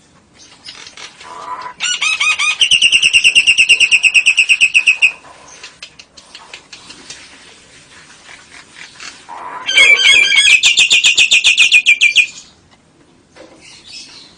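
Lovebird calling in its long ngekek: a loud, rapid, machine-gun-like run of repeated high chattering notes lasting about three seconds, given twice, with softer chirps between the runs.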